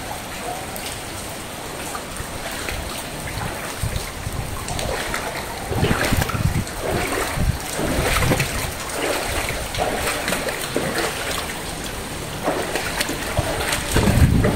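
Rain falling on standing floodwater, a steady hiss with trickling and splashing, and a low bump near the end.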